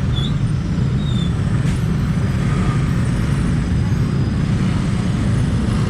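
Steady low rumble of road traffic, loud and even throughout, with a couple of faint short high chirps early on.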